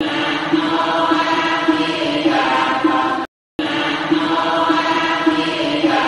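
Buddhist devotional chanting, sustained voices holding a steady pitch, played as a short loop that breaks off into a brief silence about three seconds in before starting again.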